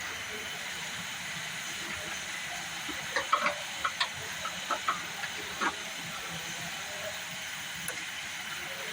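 Steady background hiss, with a run of about eight short, irregular clinks and taps of hand tools on metal between about 3 and 6 seconds in, as bracket bolts are refitted.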